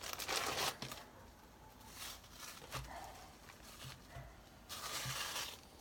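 Disposable rubber gloves being pulled onto the hands: two short bursts of rustling and rubbing, one at the start and one near the end, with a few soft knocks between.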